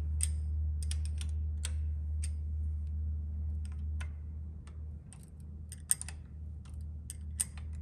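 Light, irregular metal clicks and ticks of a hex key being worked in the bolts of a DRO scale's mounting block as they are tightened, over a steady low hum.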